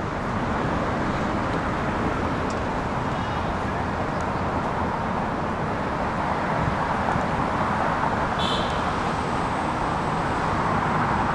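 Steady road traffic noise, a continuous wash of passing cars, with a short high squeak about eight and a half seconds in.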